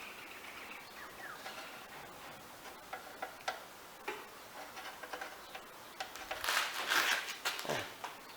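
Light clicks and taps of a metal wire clip and plastic parts being worked by hand on a Victa lawnmower's plastic housing, with a louder scraping rustle about six and a half seconds in.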